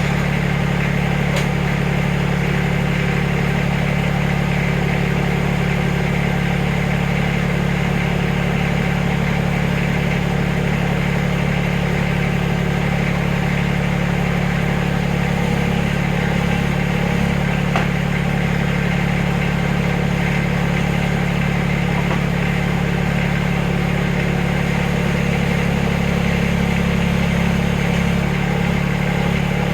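Backhoe engine running steadily at a constant speed, an even low hum with no revving.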